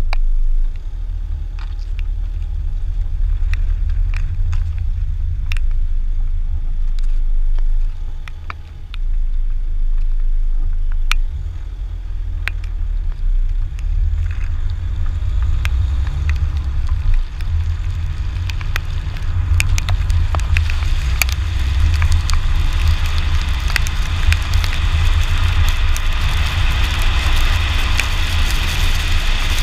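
Car driving on wet tarmac, heard from a camera suction-mounted on the outside of the body: a steady low rumble of wind and road, with scattered sharp ticks of raindrops hitting the camera. The hiss of tyres on the wet road grows louder from a little past halfway and stays loud.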